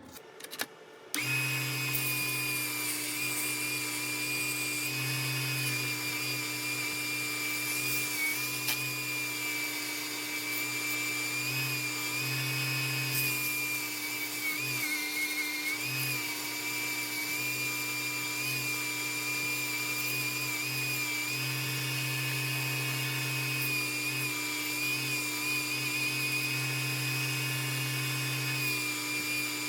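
Small wood lathe's motor starts about a second in and runs at a steady speed with a constant high whine, the pitch holding level throughout.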